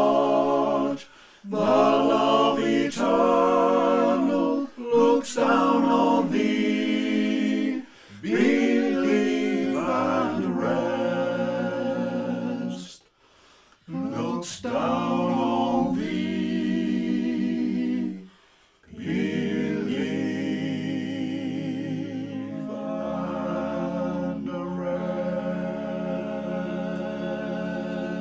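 Five men singing a Cornish song unaccompanied in harmony, phrase by phrase with short breaths between. The last phrase stretches into a long held final chord lasting nine seconds or so, with a low bass note joining partway through.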